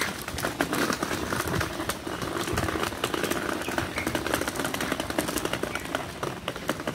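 Small wheels of a shopping trolley rattling over grooved, wet paving, a rapid irregular clatter. The wheels are noisy on this surface.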